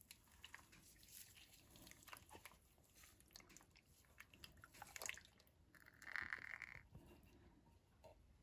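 Canned coconut milk being poured onto chicken and spices in a pressure-cooker pot, very faint, with soft scattered clicks and splats. A short, brighter noise of about a second comes roughly six seconds in.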